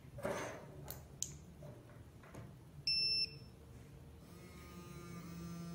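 Bousnic P-650B dog training collar receiver giving one short, high electronic beep about three seconds in, set off from the remote as a pairing check. Light button clicks and handling come before it, and from about four seconds a quieter steady buzz follows.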